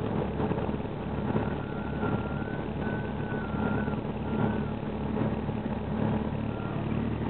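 Light aircraft's piston engine running steadily at low power while taxiing, heard from inside the cabin: an even, throbbing drone.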